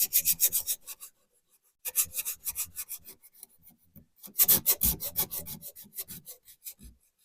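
Fine-grit sandpaper rubbed by hand over the rusted steel wheel arch of a Mk3 Ford Fiesta: quick back-and-forth strokes, several a second, in three bouts with short pauses.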